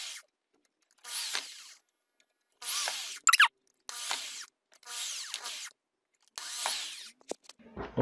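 Handheld electric drill boring holes through a plastic appliance control panel, running in a string of short bursts, each under a second, with pauses between them.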